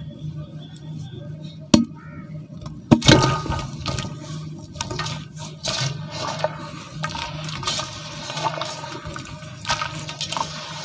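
Soft, water-soaked cement lumps breaking apart and being crushed by hand in a basin of water: a sharp snap about two seconds in and a louder break a second later, then continuous wet crumbling, squelching and sloshing as the pieces are mashed into the water.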